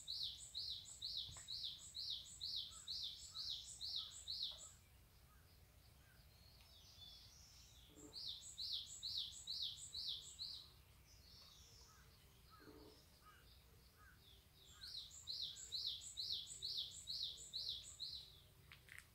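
A songbird singing a fast run of repeated high, sharp notes, about three a second, in three bouts of a few seconds each, with fainter bird chirps in the pauses.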